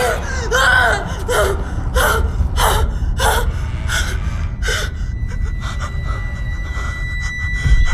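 A person gasping for breath in a quick series of about seven sharp, voiced in-breaths, roughly one every two-thirds of a second, over a low rumble. From about five seconds in the gasps stop and a faint, steady high tone sounds.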